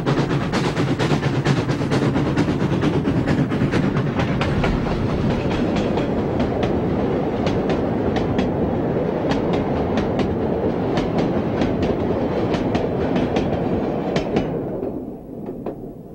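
Narrow-gauge steam passenger train of the White Pass & Yukon Route, hauled by 2-8-2 No. 73, rolling past: a steady running noise of wheels with many clicks over the rail joints, fading away in the last second or two as the cars draw off.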